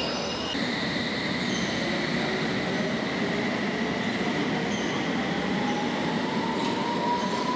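London Underground S7 Stock train pulling out of the platform: steady running noise of wheels on rail with a held high tone, and a motor whine that rises slowly in pitch over the last couple of seconds as the train accelerates.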